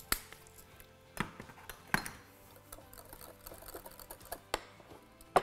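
Wooden pepper mill being twisted over a glass bowl, grinding peppercorns: faint crunching ticks with a few sharper clicks among them.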